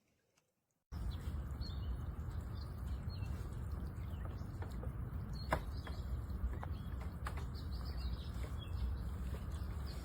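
Small birds chirping over a steady outdoor background noise with a low rumble, cutting in suddenly about a second in, with a few sharp clicks.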